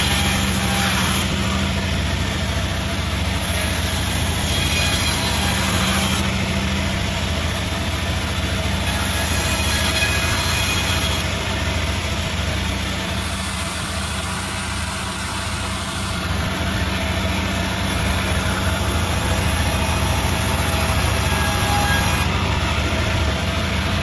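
Multi-blade sawmill machine running with a steady low hum, easing off slightly for a few seconds around the middle.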